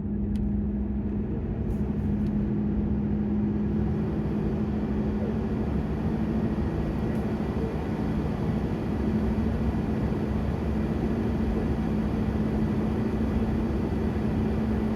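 Steady drone inside a moving car: engine and road noise with a constant low hum.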